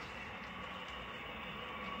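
Model train running steadily along the layout track, a continuous hum with rolling noise.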